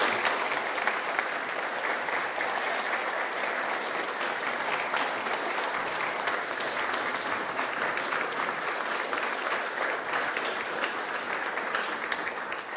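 A large audience applauding: dense, steady clapping from a full hall.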